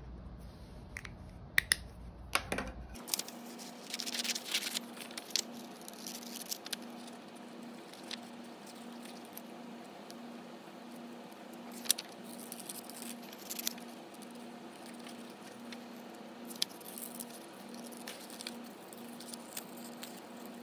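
Scissors snipping through paper, a sharp cut every second or so, with some clustered snips about four seconds in. In the first few seconds, before this, a felt-tip marker scratches on the paper.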